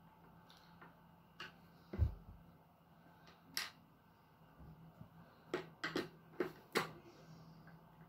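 Hands and a screwdriver on a plastic arcade stick case: a dull thump about two seconds in, then a quick run of sharp clicks and taps in the second half.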